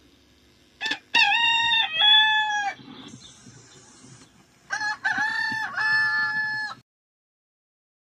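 A rooster crowing twice, each crow a long call of about two seconds that holds its pitch and drops away at the end.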